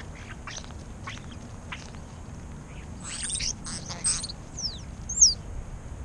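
A small group of European starlings calling: a few brief high calls, then a run of harsh rasping calls about three seconds in, followed by two falling whistles, the second and loudest near the end.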